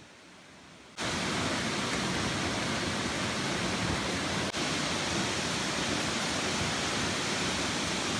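Waterfall's steady rush of falling water, cutting in suddenly about a second in and holding even throughout.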